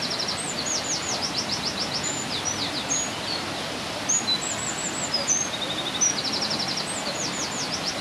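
Eurasian wren singing its loud song of rapid trills and high, sharp notes, in two long phrases with a short pause near the middle, over the steady rush of a waterfall.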